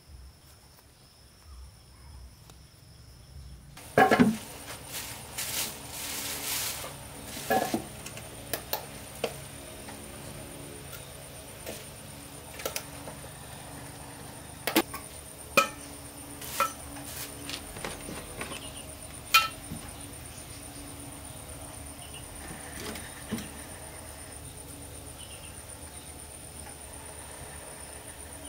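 Knocks, clinks and plastic rustling as metal cans are taken out of a plastic bag and handled on a concrete floor. The loudest knock comes about four seconds in, and more sharp knocks are scattered after it. A steady high insect trill runs in the background.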